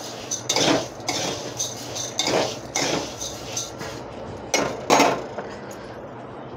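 A metal spatula stirs and scrapes roasting coriander seeds around a metal kadhai, with a rustling scrape about every half second. Two louder strokes come about four and a half and five seconds in, and then the stirring stops. The seeds are roasted to a reddish brown.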